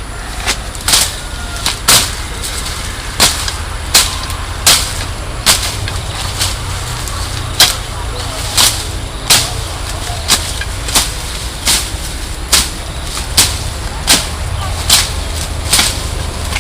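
A regular series of sharp cracks, about one every 0.7 s, over a steady low rumble.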